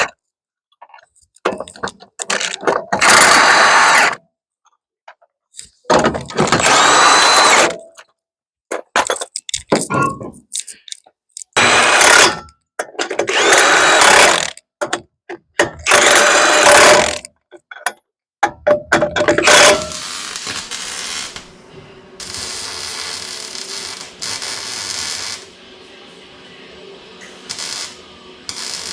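Power tools running in a string of short loud bursts, each a second or two long, with dead silence between them. After about twenty seconds there is a quieter, steady running sound with a faint hum in it.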